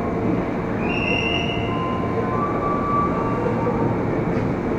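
Electric commuter train (KRL Commuter Line) approaching the platform, a steady rumble with a brief high-pitched squeal or tone about a second in.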